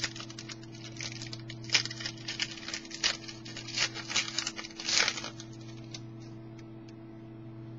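Trading cards and their packaging being handled: rustling, crinkling and quick light clicks for about five seconds, then they stop, leaving only a low steady hum.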